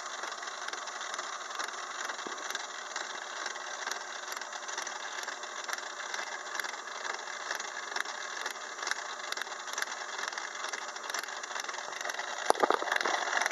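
6-inch Craftsman lathe running with its gear cutter cutting into a 24-tooth gear blank as the power cross feed moves the blank in: a steady rattling, whirring cutting noise with faint regular ticks, getting louder about a second before the end.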